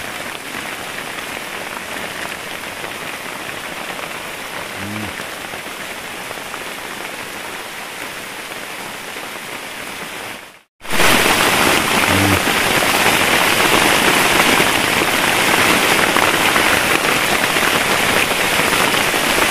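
Heavy rain pouring onto the shelter roof, a steady dense hiss. It cuts out for a moment about ten seconds in and comes back louder.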